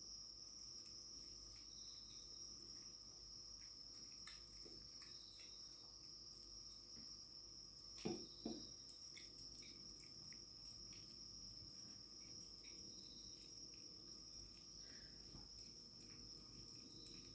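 Faint, near-silent room: crickets trill steadily in the background, with faint small clicks of a cat chewing and licking wet food from a bowl. There are two brief louder knocks about eight seconds in.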